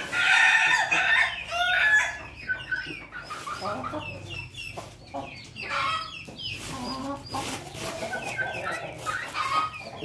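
A rooster crowing loudly for about the first two seconds, followed by chickens clucking and calling in short, repeated notes.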